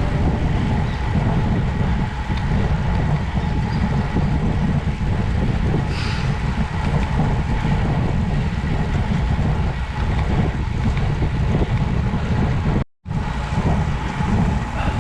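Wind rushing over the microphone and a steady low rumble while riding. It cuts to silence for a moment about two seconds before the end.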